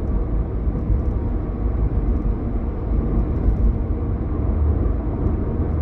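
A steady low rumble of a moving car's road and engine noise, heard from inside the vehicle.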